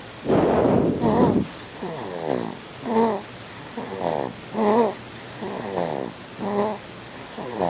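A sleeper snoring in a steady rhythm, about one breath every second and a half to two seconds. Each breath has two pitched snores, one falling in pitch and one with a wavering buzz, and the loudest, harshest snore comes about a second in.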